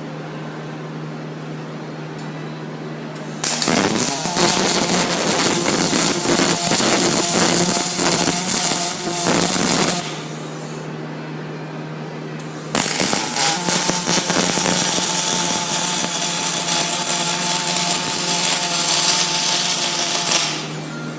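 Welding arc on aluminum square tubing, run twice: a crackling, hissing bead for about six seconds, a short pause, then a second bead for about eight seconds. A steady low hum from the welding machine runs under both.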